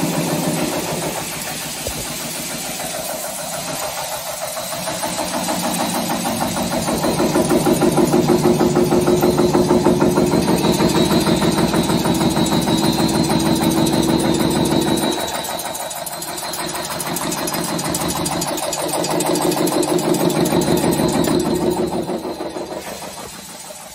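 Wire nail making machine (model X130B) running at production speed, cutting and heading 3.50 mm construction nails from steel wire in a fast, even clatter of strokes. It grows louder in the middle, dips briefly, and falls off near the end.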